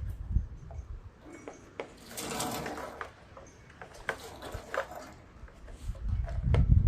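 Hand tools and small metal engine parts handled while unbolting the air cleaner from a small Briggs & Stratton engine: scattered irregular clicks and clinks of a socket wrench on an 8 mm bolt. Heavier low knocks and rumbling come near the end.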